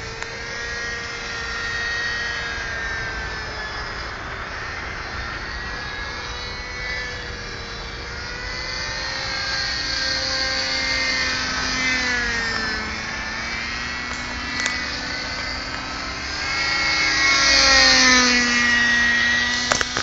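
Hirobo Shuttle Plus model helicopter in flight, its small glow engine and rotors whining steadily, the pitch rising and falling as it manoeuvres. It grows louder near the end as the helicopter comes closer.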